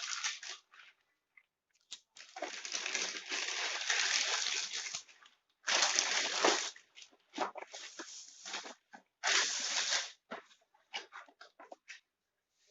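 Packaging of a dosa pan being handled and torn open: long noisy stretches of rustling and tearing, a few louder bursts, and short clicks and taps between them.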